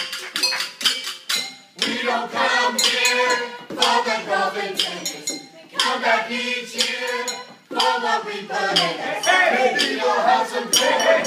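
A group of voices singing a song together, with rhythmic clinking and tapping of drinking glasses, plastic cups and dishes used as percussion. The singing breaks off briefly twice, about halfway through and again a couple of seconds later.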